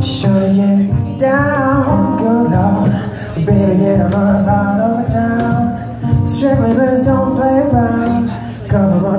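Live acoustic music: a strummed acoustic guitar under a wordless sung vocal line, with a cajon hand-drummed to keep the beat.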